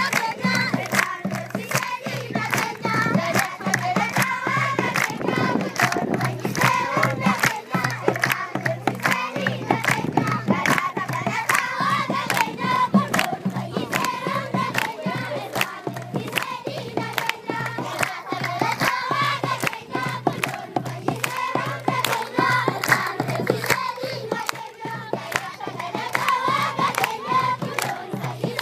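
A large group of children singing together and clapping their hands in time, the claps falling in a steady rhythm under the song.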